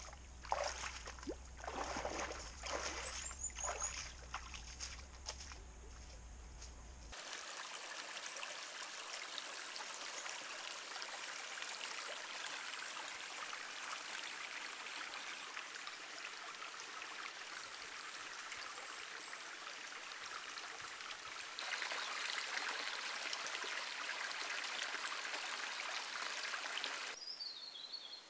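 A bush stream running and trickling steadily, growing louder about three-quarters of the way through and dropping away shortly before the end. For the first several seconds, before the water comes in, there are irregular knocks and rustles over a low steady hum, and a short high descending chirp is heard near the end.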